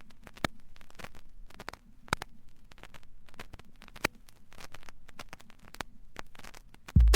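Vinyl LP surface noise in the silent groove between tracks: scattered clicks and pops over a faint low hum. Just before the end, the next track cuts in with a loud electronic bass beat.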